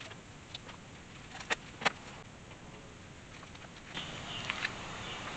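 A few faint clicks and taps, the two sharpest close together about one and a half seconds in, over a low hiss that grows slightly louder near the end.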